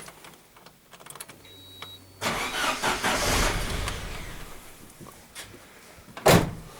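ZMZ-409 engine turned over by its starter about two seconds in, running briefly, then dying away over a couple of seconds. A single loud knock near the end.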